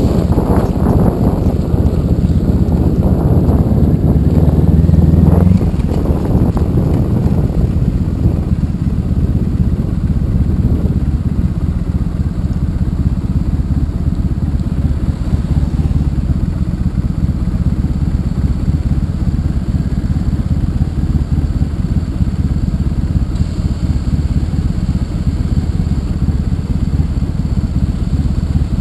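Honda ST1100 Pan European's V4 engine and the motorcycle's wind and road noise. It is louder for the first five seconds or so as the bike slows, then a quieter steady running as it rolls slowly in a queue.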